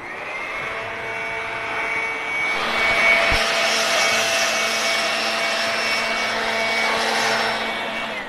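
Electric motor machine switched on, running steadily with a whine over a loud rushing hiss, getting louder about two and a half seconds in, then switched off just before the end.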